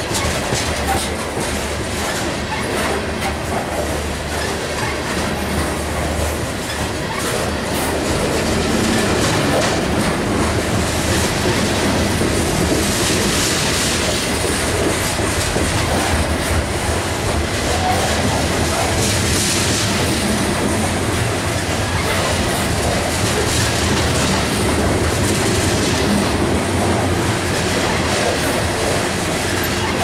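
Freight train's open-top hopper cars rolling past close by: steady wheel-on-rail rumble with clickety-clack over the rail joints, growing a little louder after the first several seconds. Brief stretches of high-pitched wheel squeal come in around the middle.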